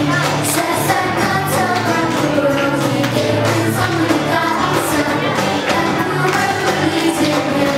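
A song: singing over a steady bass line and a beat.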